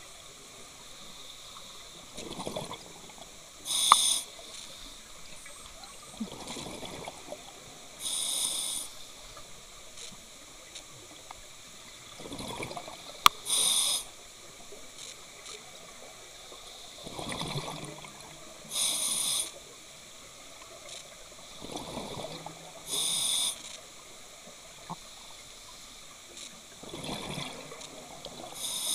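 Scuba breathing through a regulator underwater: a short, loud hissing inhale every four to five seconds, each following a longer rush of gurgling exhaled bubbles. Two brief sharp clicks, about four and thirteen seconds in.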